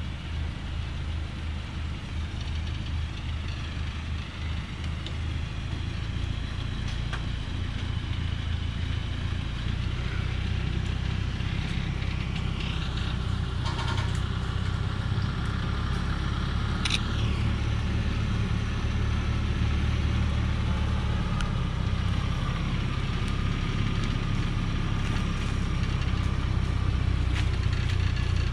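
Diesel engine of a Dongfeng logging truck loaded with acacia wood, running steadily at low revs as it creeps down a steep, rocky dirt slope, growing gradually louder as it approaches.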